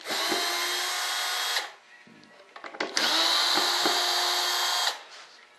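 Cordless drill-driver turning screws in a mold box: two steady runs of just under two seconds each, about a second apart, with the motor's whine.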